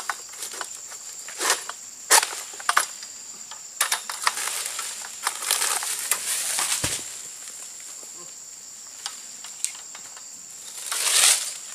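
An egrek (long-pole harvesting sickle) hacking and scraping at an oil palm's ripe fruit bunch and fronds: repeated sharp cuts and rustling, then one heavy thud about seven seconds in as the cut bunch hits the ground. Insects drone steadily underneath.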